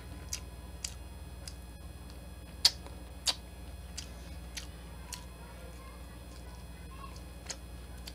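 Close-miked eating sounds: chewing garlic butter shrimp, heard as about eight short, sharp mouth clicks and smacks. The loudest two come near the middle, over a steady low hum.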